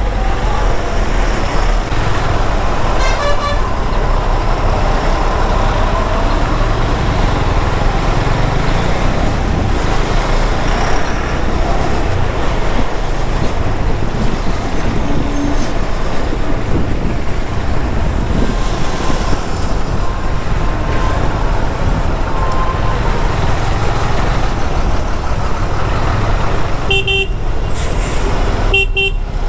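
Motorcycle riding at highway speed among trucks: a steady rumble of engine, wind and road noise, with vehicle horns sounding now and then.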